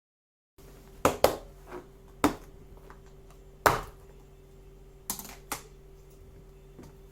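Several sharp knocks and clicks at uneven intervals, like objects being handled and set down, over a steady low hum.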